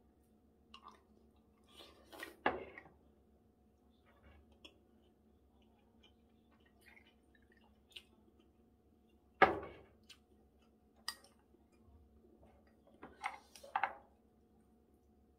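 Quiet eating sounds: soft chewing with chopsticks and dishes clicking against a bowl and the table, a few scattered knocks, the sharpest about nine and a half seconds in.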